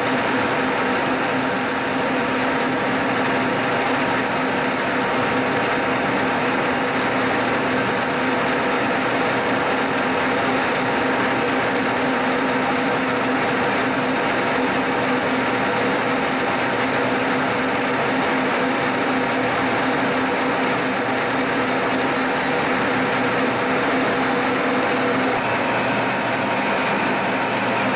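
Milling machine cutting a steel block with an end mill, giving a steady machining noise over a constant motor hum. The cut is taking extra clearance into the part.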